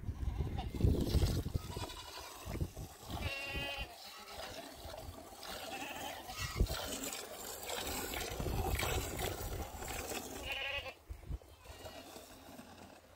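Goats bleating twice, about three seconds in and again near the end, over the steady hiss of milk squirting into a metal bowl as a goat is hand-milked.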